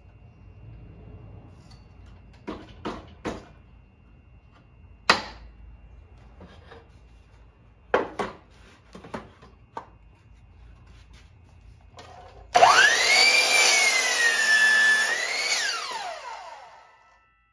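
A few sharp knocks on wood, then a power saw spinning up with a quickly rising whine, dipping in pitch as it cuts, and winding down with a falling whine.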